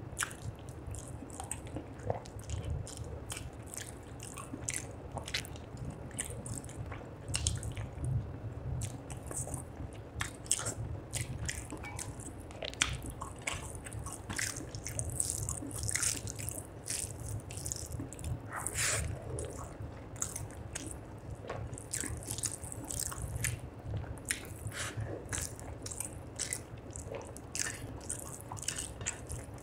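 Close-miked wet chewing and lip smacking of rice and fish curry eaten by hand, with the squelch of fingers mixing rice into gravy on the plate. Many short irregular clicks and smacks.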